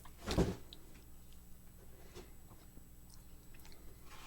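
One short muffled bump about half a second in, then faint small clicks and rustles: a large soft cookie being handled.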